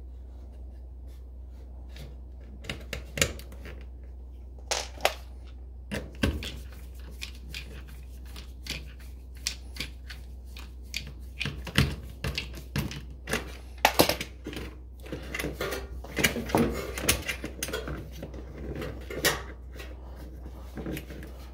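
Irregular clicks and light metallic taps as a screwdriver and the brass terminal screws and wire lugs are worked on an electric range's terminal block while a power cord is connected. The clicks come thickest in a quick run about three quarters of the way through.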